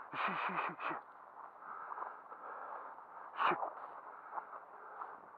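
Dry grass and brush rustling steadily as someone pushes through it on foot. A quick run of four short calls falling in pitch in the first second, and one more sharp call about three and a half seconds in.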